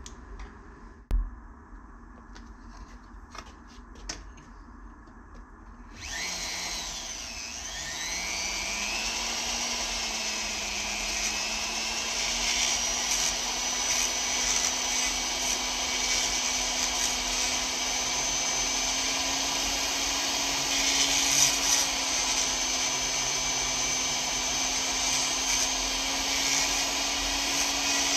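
Flex shaft rotary grinder starting about six seconds in, spinning up with a rising whine to a steady high-speed run, lightly grinding the chainsaw's crankcase near the flywheel hub. It winds down at the very end. Before it starts there is only low room sound and one sharp knock about a second in.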